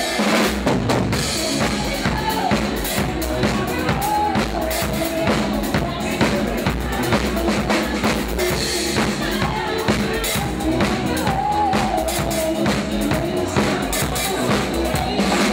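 Band music with a drum kit keeping a steady beat, with keyboard and a melody line over it.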